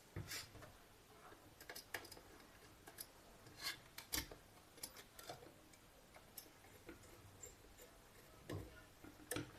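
Faint, irregular clicks and light taps, a dozen or so, from a small screwdriver and copper wire being worked into the screw terminal of a kit-kat fuse.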